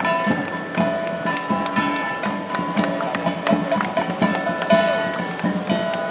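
Live music with strummed string instruments and percussion keeping a regular beat of sharp strikes.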